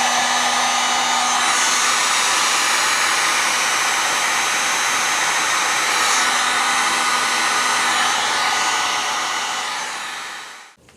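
Electric heat gun blowing steadily, a loud, even rush of air with a faint motor hum, shrinking heat-shrink tubing over a crimped wire splice. It switches off shortly before the end.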